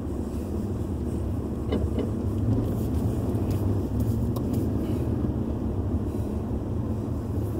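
Car engine running as the car rolls slowly, a steady low rumble heard from inside the cabin.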